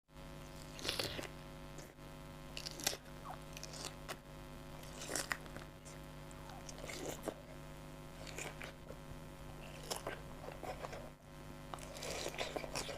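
Close-miked biting and chewing of crisp fresh pineapple chunks, with a crunchy bite every second or two over a faint steady hum.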